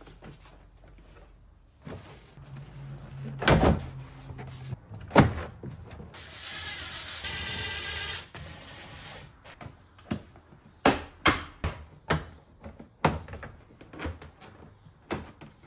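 Plastic door panel of a pickup truck being refitted: two sharp knocks as it is pressed onto the door, then a cordless drill-driver running for about three seconds as a panel screw is driven in, then a quick series of clicks and knocks as the trim pieces are snapped into place.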